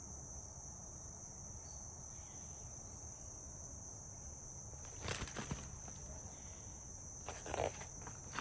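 Steady high-pitched trilling of insects outdoors. Two brief rustles break in, about five seconds in and again about seven seconds in.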